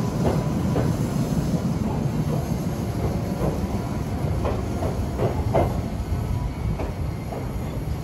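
Iyotetsu electric train pulling out of the station and moving away: a steady low rumble with a scattering of short wheel clacks and squeals over the rail joints and points.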